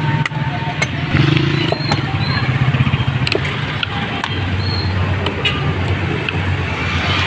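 A large knife scraping and chipping at the shell of a husked coconut, giving sharp clicks now and then, over a steady low hum that drops in pitch about four seconds in.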